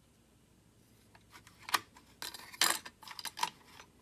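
Handling noise from a plastic toy lightsaber hilt and its battery pack: after about a second of quiet, a run of sharp plastic clicks and knocks as the parts are picked up and fitted.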